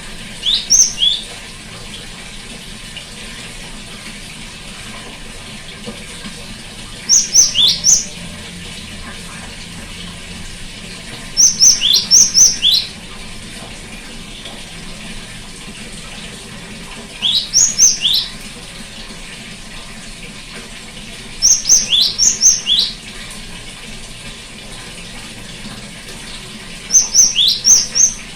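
Great tit (gelatik batu) calling: six short bursts of three to six sharp, high notes that each sweep downward, coming about every five seconds, over a steady hiss.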